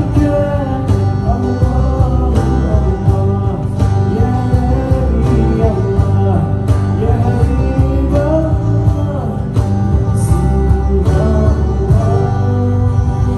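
Live band playing the song with a steady beat of about two strokes a second, under a melody line that bends in pitch.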